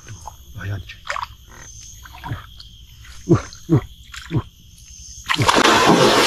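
Swamp frogs calling: a series of short croaks, each sweeping down in pitch, over a steady high drone. About five seconds in, a loud rush of noise starts and keeps going.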